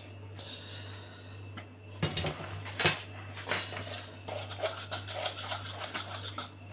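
A utensil clinking and scraping against a plastic tub as cooked spinach is stirred into beaten egg. There are irregular clicks, with one sharp knock about three seconds in. The first two seconds are quieter.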